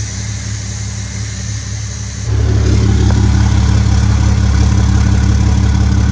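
Ram pickup's Cummins diesel engine idling steadily, much louder and deeper from about two seconds in. A faint hiss over it at first is air being let out of the rear air-suspension bags as the truck drops to 5 PSI.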